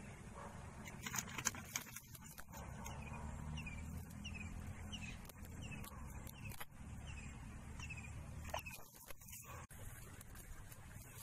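A small animal calling in a run of short, falling chirps, about two a second, over a steady low outdoor rumble. A few sharp clicks and rustles come near the start and again near the end as the cast net and catch are handled.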